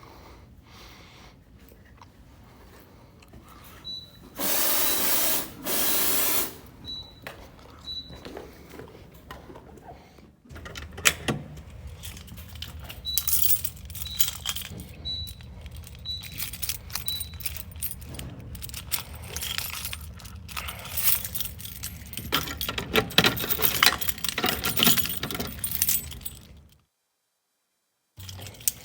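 Two loud bursts of hissing a few seconds in. After that comes a long stretch of metallic jingling and clinking, with a short high beep about once a second for several seconds. It cuts to silence near the end.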